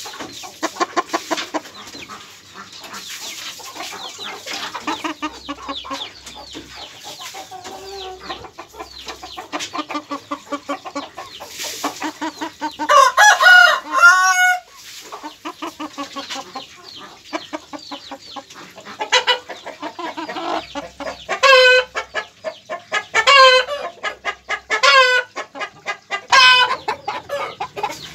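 Chickens clucking, with a loud drawn-out call about halfway through and then a run of five loud, short calls, one every second and a half or so.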